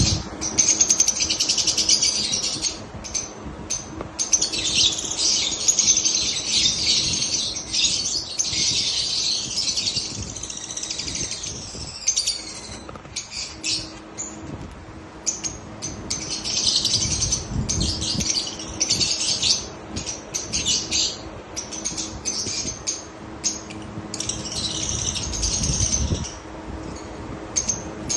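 Parblue opaline pet parrots chattering and chirping in rapid, high-pitched runs, broken by short pauses.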